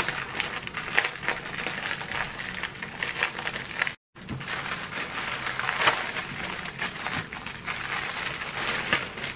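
Thin clear plastic bag crinkling and rustling as hands work it open and tip out the small zip-lock bags of diamond painting drills, with a brief silent gap about four seconds in.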